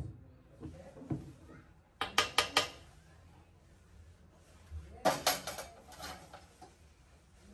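A serving ladle knocks against the rim of a large aluminium stockpot while soup is dished into a bowl. The clinks come in two quick runs, about four sharp strikes about two seconds in and several more about five seconds in.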